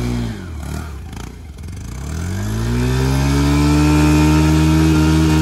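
Scooter engine revving while the scooter is stuck, its tyre not turning. The revs sag and fade about half a second in, then climb again from about two seconds and hold high and steady.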